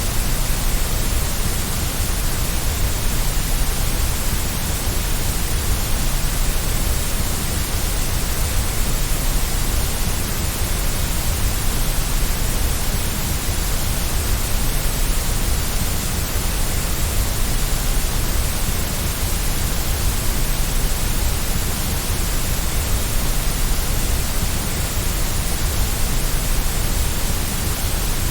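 Steady, unchanging white noise: a constant hiss across the whole frequency range, with no rhythm or events.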